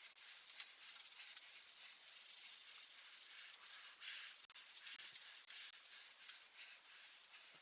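Faint scratchy scrubbing of a soapy SOS steel-wool pad on a rusty bicycle crank and chainring, in irregular strokes, scouring off surface rust.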